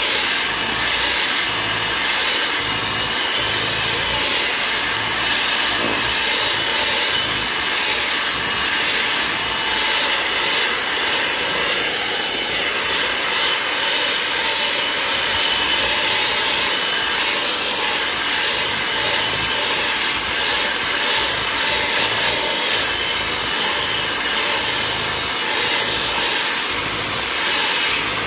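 Electric mixer running steadily, with no change in speed.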